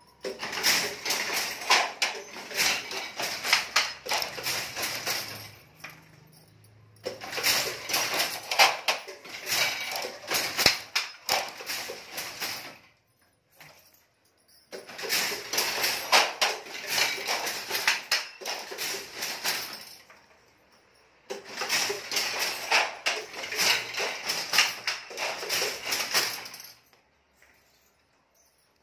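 Silk-saree handloom with a punched-card jacquard being worked: rapid wooden and metal clatter of the batten and loom mechanism, in four bouts of about five seconds each with short pauses between.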